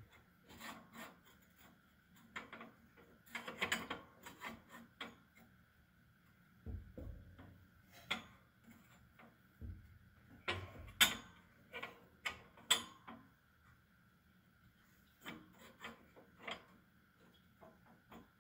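Scraping, rubbing and light clicks of a woodstove baffle being worked by hand into place at the top of the firebox, the last piece not yet seating in its detent. Several sharper clicks come about two-thirds of the way through.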